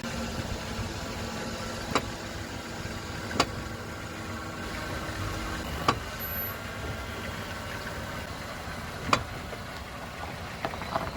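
Chrysler light truck driving, with steady running and road noise broken by four sharp knocks from the running gear. The knocking was traced to a front brake caliper missing one of its two mounting bolts, with the other loose.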